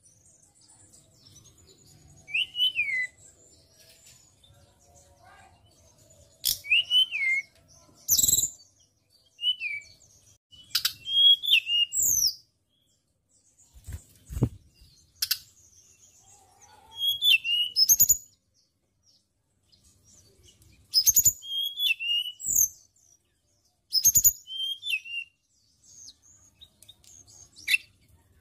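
Hill blue flycatcher (tledekan gunung) singing short phrases of sharp chirps and slurred whistles, with pauses between phrases. A few sharp clicks fall between the phrases.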